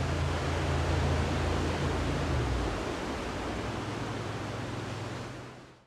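Steady hiss with a low hum underneath, fading out just before the end.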